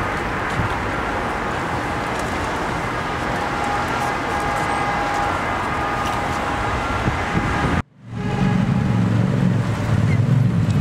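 City street traffic: the steady noise of passing cars. About eight seconds in, it cuts out abruptly for a moment and comes back louder, with a heavy low rumble.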